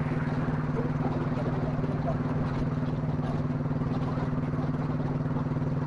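Royal Enfield single-cylinder motorcycle engine running steadily at cruising speed, its even thump heard from the rider's seat with wind noise on the microphone.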